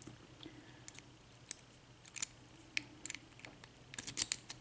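Small metallic clicks and ticks of a key and Schlage 6-pin cylinder lock being handled, with a quick run of clicks near the end.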